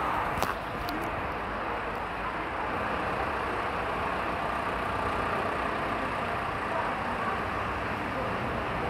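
Steady outdoor city background noise with a low traffic hum, and a few faint clicks about half a second in.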